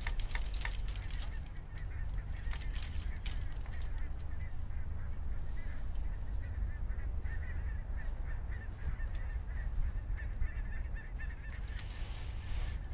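Steady low outdoor rumble, typical of wind on the microphone, with bird calls in the background and a few faint clicks near the start and near the end.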